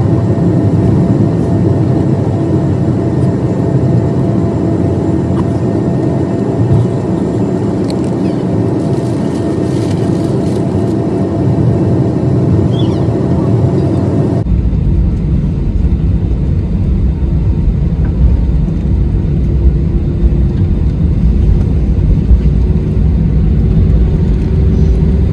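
Jet airliner engines and cabin noise heard from inside the cabin, steady, with faint constant tones. About halfway through, the sound changes abruptly to a heavier low rumble with an engine tone that slowly rises in pitch.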